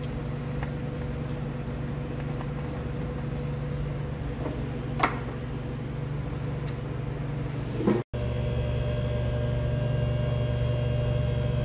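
Steady shop hum with a single sharp click about five seconds in. At about eight seconds the electric hydraulic pump of a two-post car lift starts and runs with a louder, steady hum as the car is raised.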